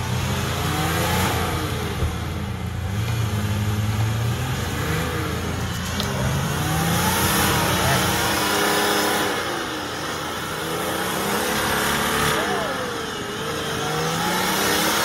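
Off-road 4x4's engine revving up and down several times, its pitch rising and falling, as the vehicle strains to climb an obstacle it cannot get over.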